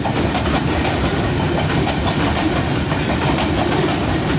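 Train running past at speed, its wheels clattering over the rail joints in a steady, loud rumble.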